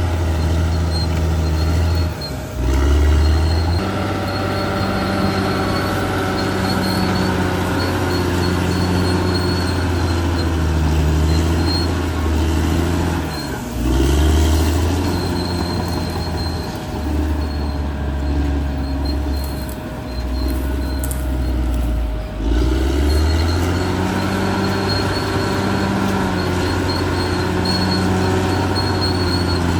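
Caterpillar D6R XL bulldozer's diesel engine running under load as the crawler works, its note dropping and picking up again about three times, with a squeal from the running gear.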